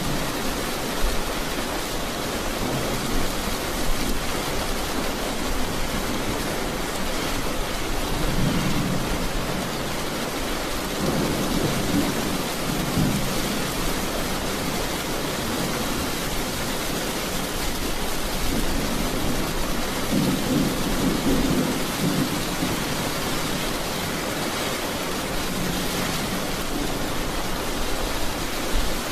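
Heavy rain falling steadily, with low rolling thunder rumbling through it: a short roll about eight seconds in, another around eleven to thirteen seconds, and a longer one from about nineteen to twenty-two seconds.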